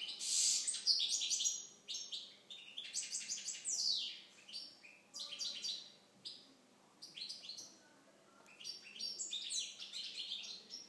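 European goldfinch of the Balkan subspecies (Carduelis carduelis balcanica) singing: quick, high twittering phrases strung together, with short pauses in the second half.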